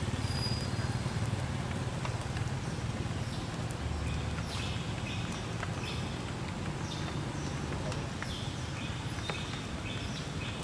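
Steady low outdoor rumble with a series of short, high-pitched chirping calls, one every second or so from about a third of the way in.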